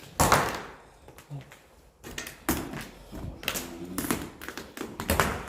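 A run of irregular knocks and scrapes, about five of them spread across a few seconds, the first the loudest, with quieter shuffling between them.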